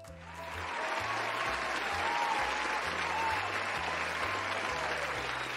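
Crowd applauding, swelling over the first second and then holding steady, over background music with a low, stepping bass line.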